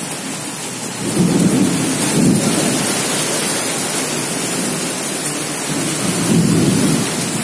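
Heavy rain pouring steadily in a storm, with two low rumbling surges, one about a second in and one near the end.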